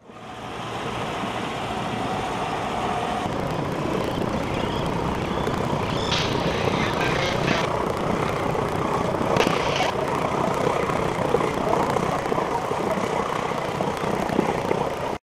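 Steady, broad outdoor rumble of engine and wind-like noise, with brief higher sounds twice around the middle. It fades in at the start and cuts off suddenly near the end.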